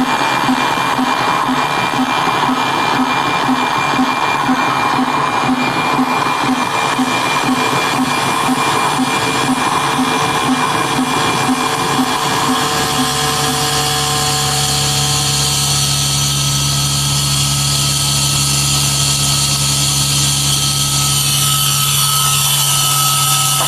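Electromagnetic fields of computer equipment and monitors heard through a small stereo loop antenna: a dense electrical buzz and whine, with a tone pulsing about twice a second. About halfway through this gives way to a steady low hum.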